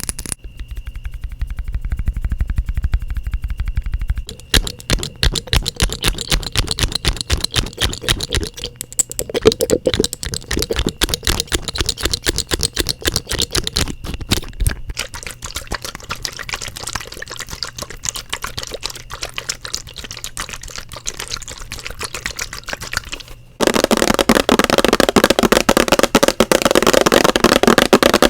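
ASMR tapping: rapid fingertip and fingernail taps on hard objects, a dense run of quick clicks that changes texture as the objects change, turning suddenly louder and denser about 23 seconds in.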